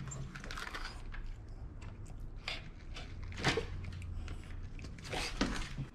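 Jack Russell terrier mix struggling and snapping at a grooming tool: scuffling and clicking, with two short sharp sounds from the dog, one about halfway and one near the end, over a faint steady hum. It is a terrified dog fighting off having its muzzle put back on.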